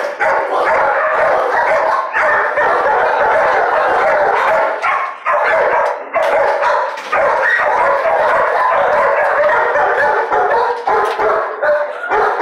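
Many kennelled shelter dogs barking and yipping at once, overlapping without a break.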